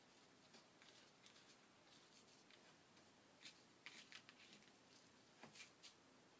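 Near silence with faint rustling and a few soft taps as fingers arrange and press coiled twine onto a paper card, the taps mostly in the second half.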